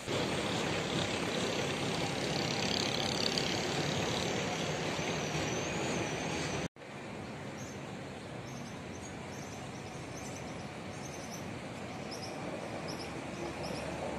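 Steady wash of outdoor city noise in the rain: distant traffic and rainfall blending into an even hiss. Small birds chirp in short, high, repeated notes through the second half, after a brief break in the sound about halfway.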